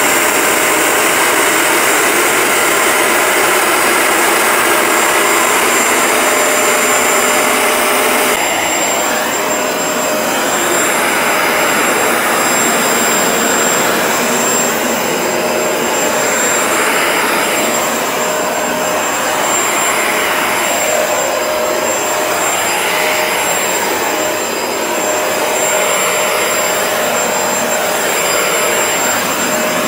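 Bissell ProHeat 2X Revolution Pet Pro upright carpet cleaner running, its motor giving a loud, steady whine. About eight seconds in the sound changes, then swells and fades every couple of seconds as the machine is pushed back and forth over the carpet.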